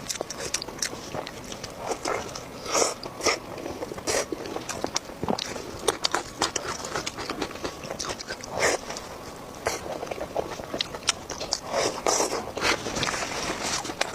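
Close-miked eating: biting and chewing spicy pork belly, a dense, irregular run of short wet clicks and crunches.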